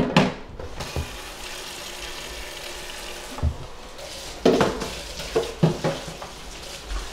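Kitchen tap running into a stainless steel sink during hand dish-washing, with a few irregular knocks and clinks of dishes, the loudest about four and a half to six seconds in.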